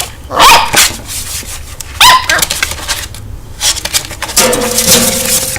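Two-month-old puppy barking: two short high yaps, about half a second in and about two seconds in, then a longer, rougher sound near the end.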